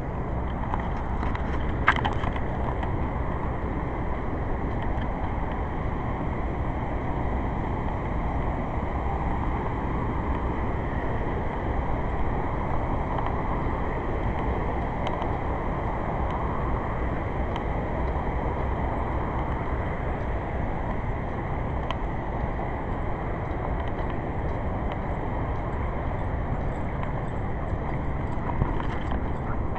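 Steady rumble and road noise of a vehicle on the move, with a sharp click about two seconds in and another near the end.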